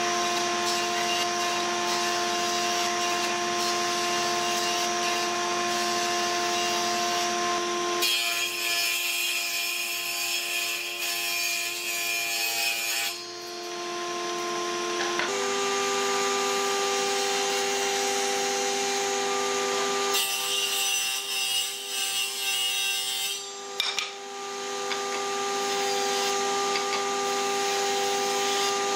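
Combination woodworking machine (jointer with a saw table) running with a steady motor whine, its cutters biting into wooden boards in stretches of harsher, hissing cutting noise about eight and twenty seconds in.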